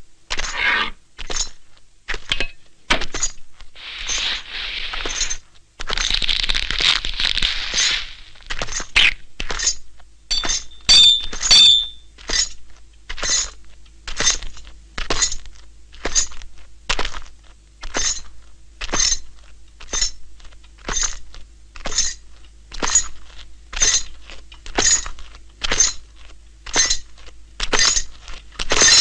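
Sharp knocks in a slow, steady beat, about three every two seconds, like a clock's tick kept by mallet blows. A hiss runs through from about four to eight seconds in, and a brief metallic ring sounds about eleven seconds in.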